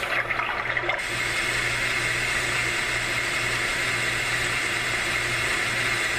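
Homedics SoundSpa clock radio playing its white noise setting through its small speaker: a steady, even hiss over a low hum.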